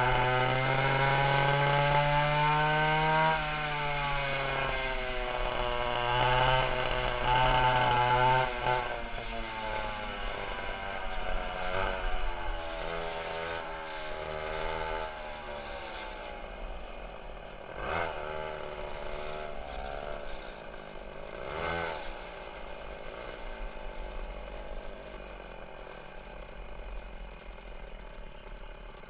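Twin two-stroke chainsaw engines of a 1960 Fox go-kart running and revving up and down as the kart is driven. They are loud for the first several seconds, then drop back to a quieter run with two brief rev swells in the second half.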